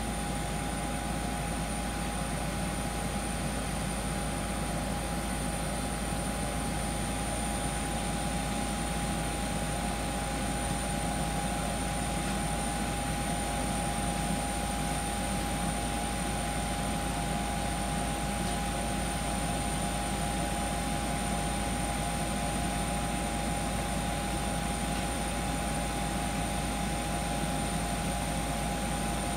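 Steady, unchanging jet-aircraft whine and hum from a parked Boeing 737-800, with a constant high tone over a low rumble.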